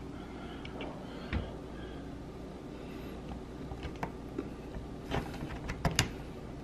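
Small plastic clicks and handling noises as a two-pin wire connector is pushed onto the circuit board of a dishwasher soap dispenser. The sharpest clicks come as a quick pair near the end.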